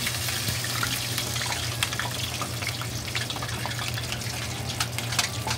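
Flour-and-water-battered potato masala roll frying in hot oil in a pan, sizzling with a steady hiss and many small crackles and pops just after it is lowered in.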